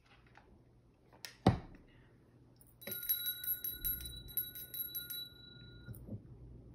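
A single sharp knock about a second and a half in, then a small brass hand bell shaken over a tarot deck, ringing with rapid clapper strikes for about three seconds before it stops.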